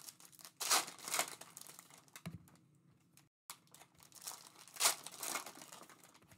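Foil wrapper of a Panini Mosaic basketball card hobby pack crinkling as it is torn open and peeled back by hand, in two louder bursts of rustling, about a second in and again around four to five seconds in.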